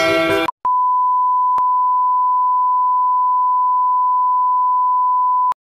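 Colour-bar test tone: a single steady pure beep at the standard 1 kHz, held for about five seconds and ending abruptly, with small clicks where it starts, about a second in, and where it stops. Intro music cuts off half a second before it.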